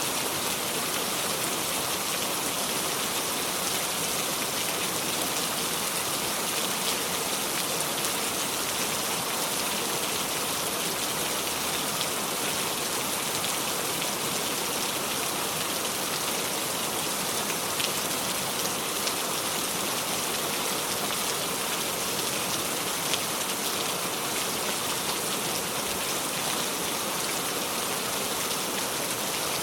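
Steady heavy rain falling on surfaces, an even hiss with scattered individual drop ticks and no thunder.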